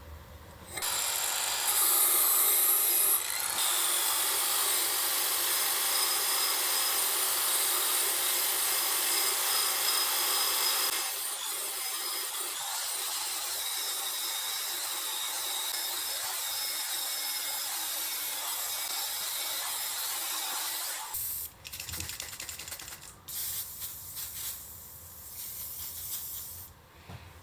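A handheld power tool, likely a drill, running against an old hand-forged axe head, a steady abrasive grinding as the rusty steel is cleaned. It starts about a second in and stops about three-quarters of the way through, followed by a few short bursts.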